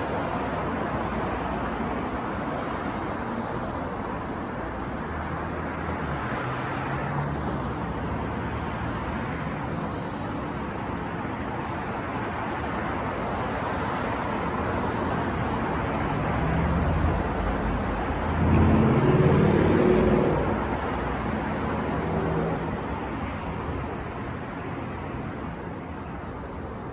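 City street traffic: a steady wash of passing cars, with one louder vehicle whose low engine note swells and passes about two-thirds of the way in.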